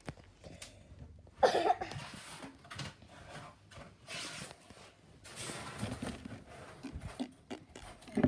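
Scattered rustling and handling noise as plastic toy ponies are moved about and set down on a hard surface, with a short louder noise about one and a half seconds in.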